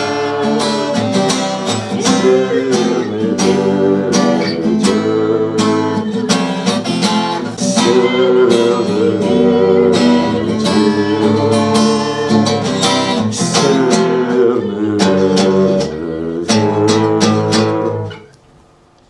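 Strummed acoustic guitar playing the instrumental ending of a song, with regular chord strokes. The music stops about a second before the end and the last sound dies away.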